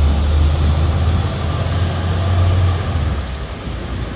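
A steady low vehicle rumble with a noisy hiss over it, dropping away about three seconds in.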